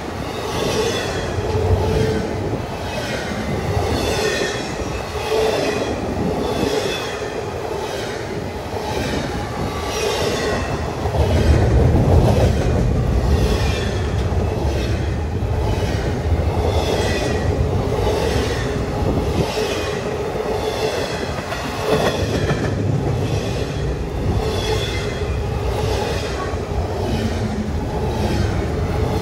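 Freight train cars rolling past, with wheels squealing and a regular repeating clatter from the wheels over the rail. A louder low rumble swells about eleven seconds in.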